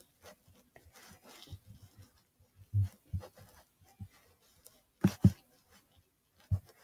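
Scattered soft thumps and clicks with faint rustling, the loudest a quick pair about five seconds in.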